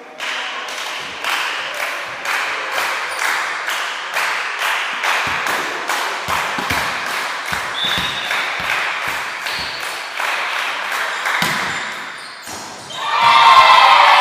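Women's volleyball rally: a steady, fast rhythmic clapping runs under the play, with scattered thuds of the ball and players' feet. About thirteen seconds in, a loud burst of shouting and cheering breaks out as the point is won.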